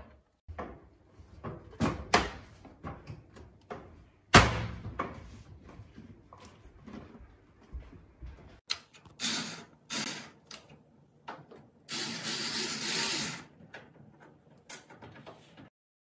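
A GE JES2051SNSS countertop microwave in a stainless steel built-in trim kit being handled and pushed into a wall cabinet opening: knocks and clunks, one loud knock about four seconds in, and stretches of sliding, scraping metal on wood in the second half.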